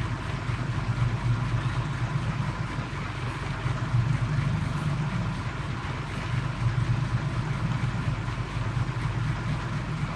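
Small fishing boat's engine running steadily with a constant low hum, over wind and water noise.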